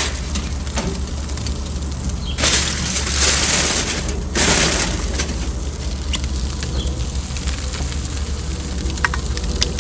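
Food sizzling on a hot charcoal grill, with two louder bursts of hissing a few seconds in, over a steady low hum.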